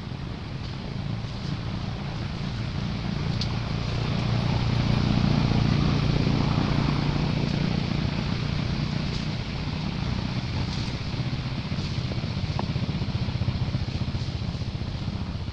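Low engine hum of a passing motor vehicle, swelling to its loudest about five seconds in and slowly easing off.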